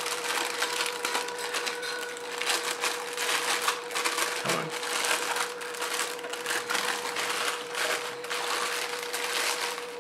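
Plastic packaging crinkling and crackling in irregular bursts as a boxed projector lamp module is worked loose from it by hand. A faint steady hum runs underneath.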